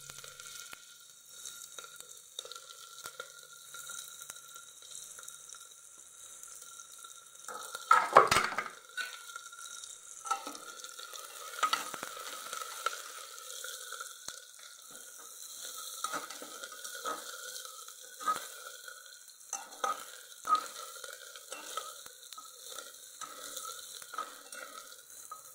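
Sliced onions sizzling as they fry in hot mustard oil in an aluminium pressure cooker, while a metal spatula stirs them, scraping and knocking against the pot. One loud clank of the spatula about eight seconds in, then repeated scrapes.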